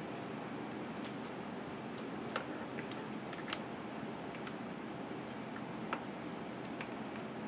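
Scattered small clicks and ticks of fingers handling stiff solid-core hookup wire and small plastic parts on a scale model, a few sharper clicks standing out, over a steady low hiss.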